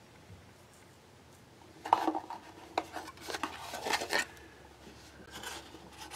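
Small hard parts being handled on a workbench: about two seconds in, a string of light clicks and rattles for a couple of seconds, then softer handling noise near the end.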